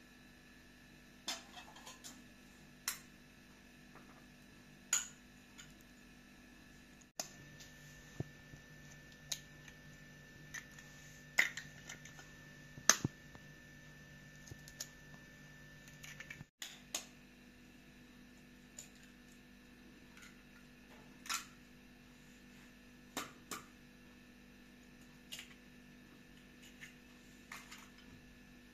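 Scattered sharp clicks and taps of a metal spoon, eggs and a plastic mixing bowl being handled as eggs are cracked into a bowl of flour, with the loudest clicks in the middle. A faint steady hum runs underneath.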